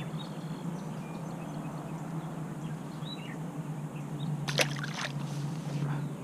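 A bass dropped back into the lake from a kayak, splashing briefly about two-thirds of the way in, over a faint steady hum of water and hull.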